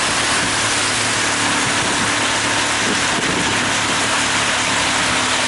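Pontoon boat's motor running steadily at slow, no-wake speed, with a constant hiss of water and wind.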